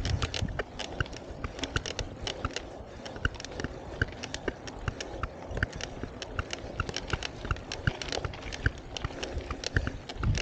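Mountain bike riding over a dry dirt and gravel trail: the tyres rumble and crunch on the ground while the bike rattles and clicks over the bumps, in a dense, irregular stream.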